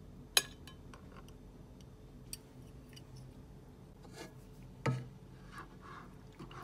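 Metal chopsticks clicking against a plate and a plastic cutting board: a few separate sharp clicks, then a heavier, duller knock about five seconds in.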